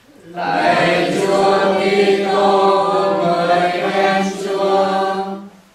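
Congregation chanting the sung acclamation that follows the Gospel at Mass: several voices singing together in plain chant for about five seconds, stopping sharply.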